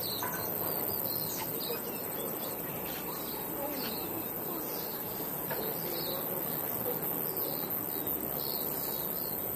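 Small birds chirping in short, repeated high calls every second or so, over a steady faint outdoor background with a constant high-pitched hiss or trill.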